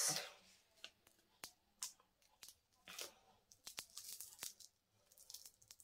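Double-sided adhesive strip being peeled and worked apart by hand: faint, scattered short crackles and tearing sounds.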